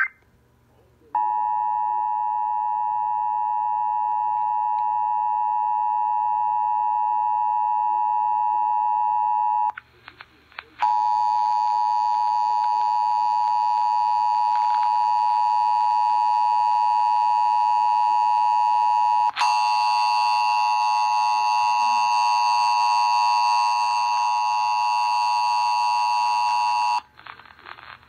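Emergency Alert System attention signal: a steady two-tone alert beep near 1 kHz, heard through a computer's speakers from a radio web stream. It starts about a second in, drops out briefly near ten seconds, resumes and turns harsher around nineteen seconds, then stops shortly before the end.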